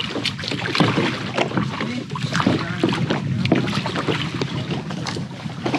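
Kayak paddling: irregular splashes and knocks of the paddles working the water.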